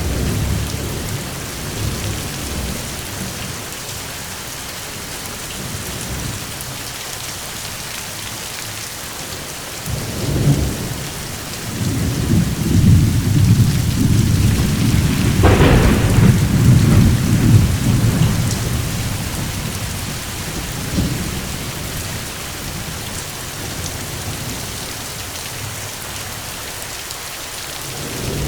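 Steady heavy rain with rolling thunder: a short rumble about ten seconds in, then a long loud rumble a couple of seconds later that lasts about seven seconds, with a sharp crack in the middle of it.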